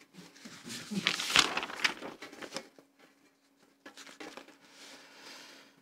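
Paper rustling and crinkling: a dense run of crackles over the first two or three seconds, then a few fainter rustles near the end.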